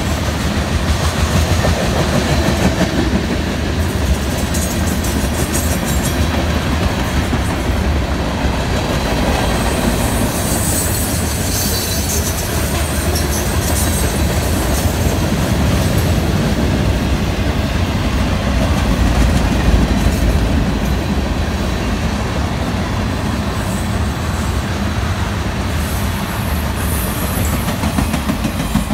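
Freight train of covered hoppers and boxcars rolling past close by: a steady din of steel wheels on the rails. Brief high-pitched wheel squeals come about a third of the way through and again near the end.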